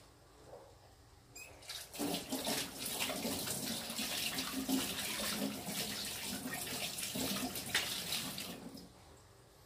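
Tap water running into a sink, starting about two seconds in and turned off near the end.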